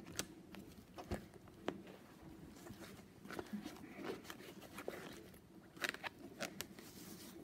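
Handling noise from a clear plastic kit sleeve and cross-stitch materials being moved and rustled: a few sharp clicks and taps, rustling in the middle, and a cluster of clicks near the end.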